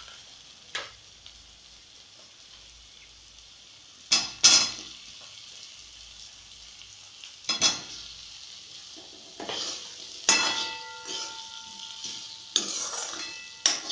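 Steel ladle scraping and stirring in a metal kadhai as boiled potato pieces are tossed into frying masala, over a faint steady sizzle. The scrapes come every few seconds and grow busier near the end, where the pan rings briefly.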